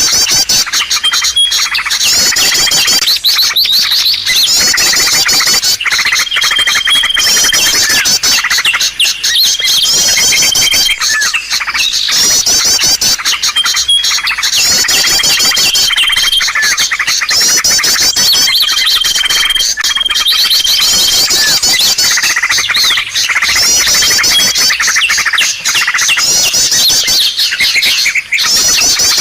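Loud lure recording of small birds calling: dense high chirping and rapid trills, with short steady whistles repeating every few seconds, used to attract small birds.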